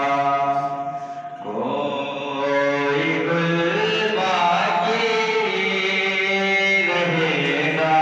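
A young man reciting a naat: unaccompanied devotional singing into a microphone, in long drawn-out melodic phrases, with a brief break a little after the start.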